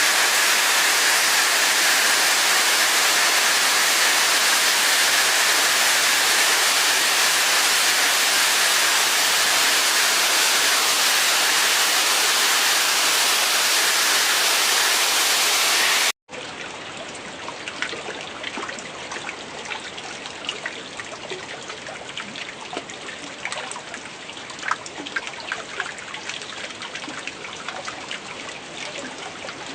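Steady, loud rush of flowing water for a little over half the time, then an abrupt cut to quieter trickling and dripping water with many scattered small ticks of falling drops.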